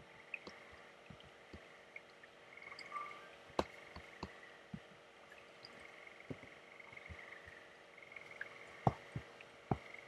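Slow, irregular typing on a MacBook keyboard: about a dozen separate keystrokes, a second or so apart, the loudest few near the end, over a faint steady background hiss.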